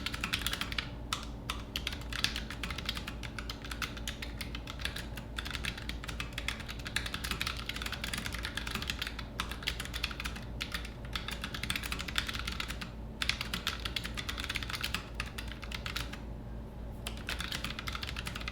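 Steady fast typing on a Keychron K3 low-profile wireless mechanical keyboard with brown optical switches: a dense stream of light key clicks with a few short pauses, the longest about a second near the end.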